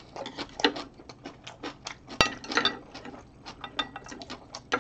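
Close-up chewing of a mouthful of rice and kimchi: irregular wet mouth clicks and smacks, with one sharp click about two seconds in.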